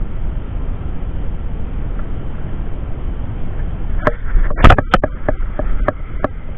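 Steady low rumble of wind on a head-worn camera's microphone. About four seconds in comes a quick cluster of sharp knocks and clicks as the fishing rod and reel are handled, the loudest near the start of the cluster.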